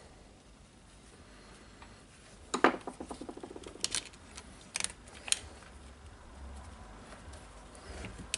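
Small parts being handled during reassembly of a power tool: a sharp click followed by a quick run of fading light rattling ticks, then a few more separate sharp clicks.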